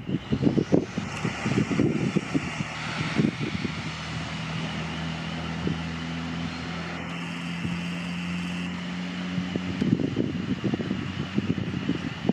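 Diesel railcar's engine running under power with a steady hum while it gives off exhaust smoke. Wind buffets the microphone at the start and again near the end.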